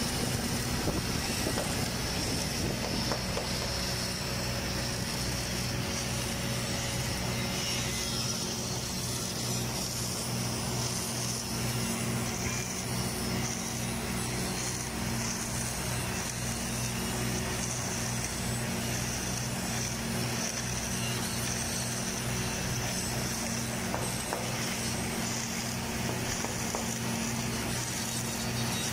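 Automatic girth welding machine running a submerged arc weld along a horizontal tank seam: a steady low hum with a constant high hiss.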